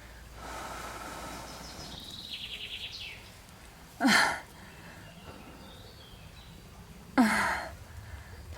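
Two short, loud breaths about three seconds apart: a person blowing hard into a tinder bundle to bring a hand-drill ember up to flame.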